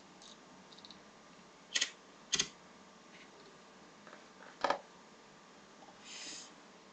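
Three sharp clicks, two close together about two seconds in and a third a couple of seconds later, over a faint steady background. A short soft hiss follows near the end.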